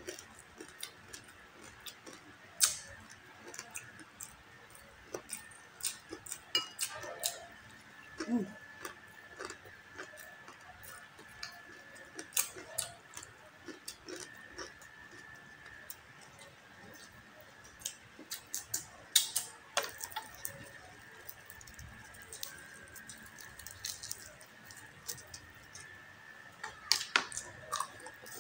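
Close-up crunching and chewing of the crackling skin of a deep-fried crispy pata pork leg, heard as irregular sharp crackles and clicks, with a faint steady high whine underneath.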